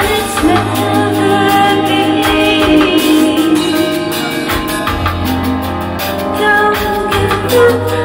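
Live band music: a woman singing lead over electric bass guitar, with a steady low bass line and regular beats.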